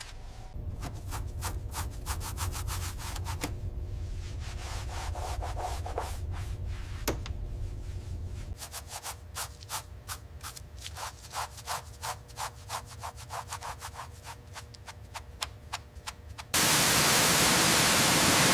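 Rhythmic scrubbing strokes on a surface, about two to three a second. Near the end a loud, steady hiss cuts in abruptly.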